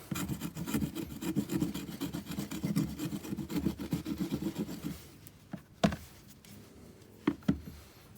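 The saw teeth on the spine of a Broc Tracker knife rasping quickly back and forth over a green stick, stripping off the bark. The strokes stop about five seconds in, followed by three sharp knocks.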